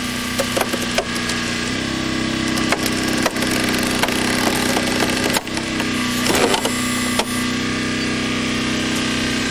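Hydraulic rescue cutter (jaws of life) cutting through a car's roof pillars: sharp cracks and crunches of metal and glass over the steady hum of the hydraulic power unit, whose pitch steps up about two seconds in, drops back past the halfway point and steps up again.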